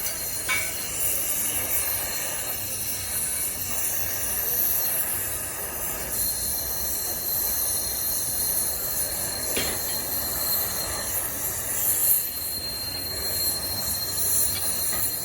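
Steady hissing, rushing machinery noise with a thin high whine that joins about six seconds in, and two sharp clicks.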